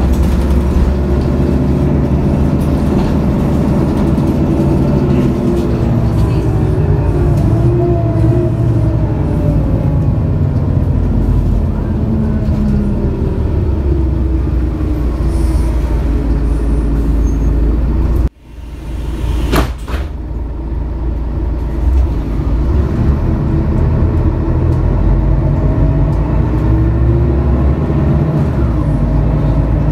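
Mercedes-Benz O530 Citaro bus with an OM457hLA inline-six diesel and ZF Ecomat automatic gearbox, heard from inside the cabin while driving: the engine note climbs, then drops as the gearbox shifts up, several times over. About two-thirds of the way through the sound briefly falls away, followed by a short sharp knock.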